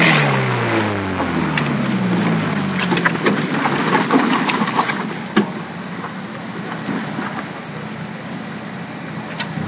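A trials car's engine labouring up a muddy, stony hill climb, its note falling away as the car moves off up the track. Then the tyres scrabble for grip on the slippery, polished surface, with scattered clicks of stones and a noisy spray of mud that fades as the car slows near the top.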